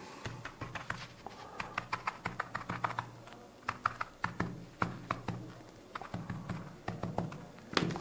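Light, irregular clicks and taps from fingers sticky with glue and metal tweezers handling small scenery pieces on a diorama base.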